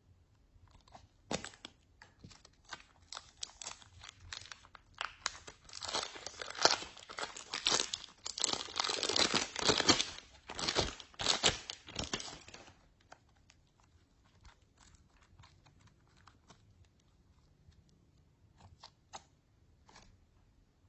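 Slime being squished and mixed by hand, with dense crackling and popping that builds and is heaviest midway, then stops abruptly and gives way to a few scattered faint clicks.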